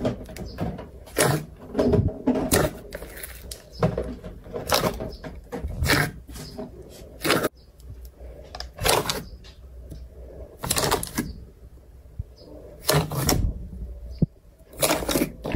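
Thick, glossy slime being pressed and kneaded by hand, giving sharp squelching pops and clicks at irregular intervals, a dozen or so over the stretch.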